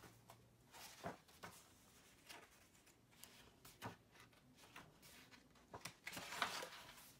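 Faint rustling and soft taps of a picture book's paper pages being handled and turned, with a louder page swish about six seconds in.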